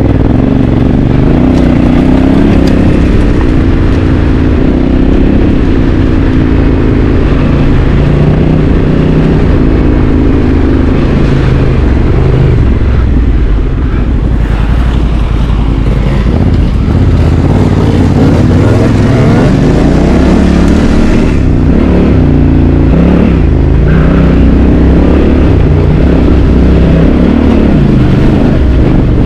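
Honda CRF1100 Africa Twin's parallel-twin engine running under load, its revs rising and falling repeatedly as the bike is ridden off-road.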